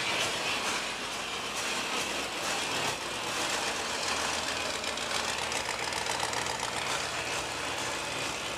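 1976 Pontiac Grand Prix engine idling steadily, heard as a low, even running sound.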